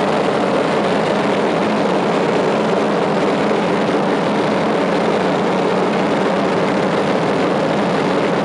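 Steady drone of a single-engine propeller aircraft's engine and propeller in flight, heard from inside the cockpit, with rushing air noise over it.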